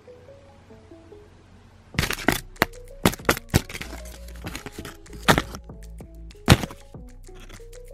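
Large dry leaf crackling and crunching as a cat grabs and bites at it: a quick series of sharp crackles starting about two seconds in, a few of them loud. Background music with a simple melody plays underneath.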